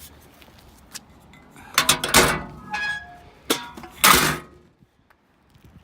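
Old metal beer cans clanking and rattling as they are handled and set down, with a brief metallic ring. Two louder knocks come about two and four seconds in.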